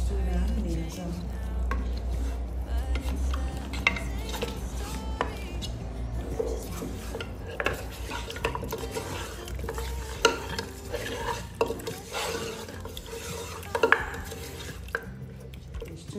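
Seasoned raw meat chunks being stirred and mixed with a spatula in a pressure-cooker pot, scraping around the pot with occasional knocks against its side. A low hum sits under the first few seconds.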